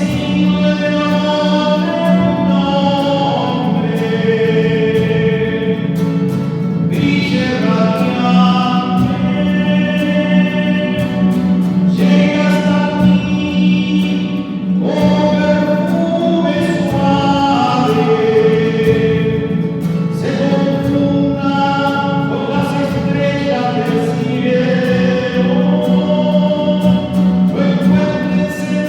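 Choir singing a sacred hymn, with a steady low note held underneath.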